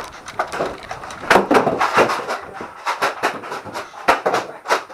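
A rapid, irregular run of sharp knocks and clicks.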